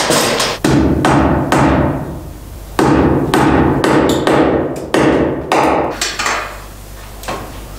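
Several hammer blows on the overhead floor framing, struck at uneven intervals, each with a short ringing tail. They thin out near the end.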